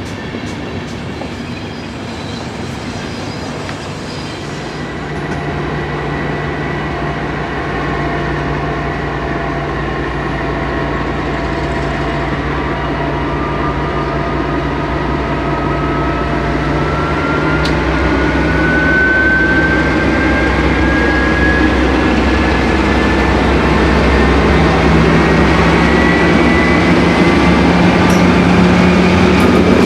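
DB class 234 'Ludmilla' diesel locomotive hauling a passenger train, its engine running steadily and growing louder as it approaches. From about halfway a whine rises steadily in pitch. The first few seconds hold another train's coaches rolling past.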